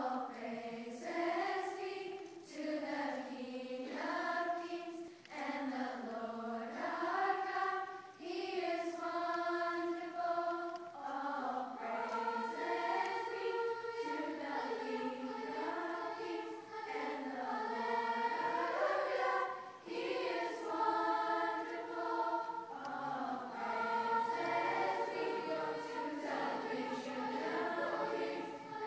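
Large children's choir singing in long sustained phrases, with short breaths between them.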